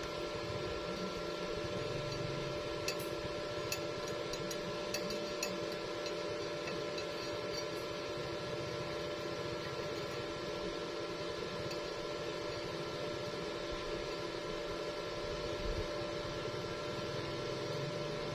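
Steady machine hum with a hiss, holding several fixed tones, and a few light clicks a few seconds in.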